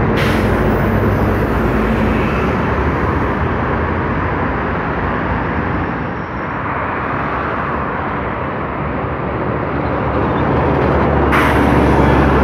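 Steady heavy road traffic: city buses and cars passing, with tyre noise and diesel engine hum. Near the end the engine of an articulated city bus passing close grows louder.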